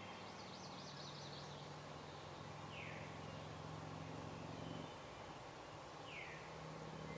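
Quiet field at dawn with songbirds: a short falling whistle repeats about every three seconds, and a brief high trill sounds near the start, over a faint steady low hum.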